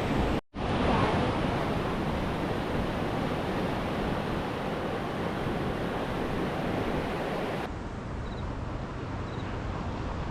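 Ocean surf breaking steadily on the beach, with wind buffeting the microphone. About half a second in, the sound drops out sharply for a moment.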